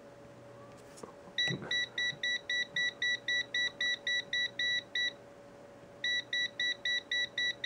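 ennoLogic eM860T multimeter's non-contact voltage (NCV) alarm beeping rapidly, about four high beeps a second, starting about a second and a half in, breaking off for about a second, then resuming. The meter is sensing the live 120 V mains in a power plug held right against it.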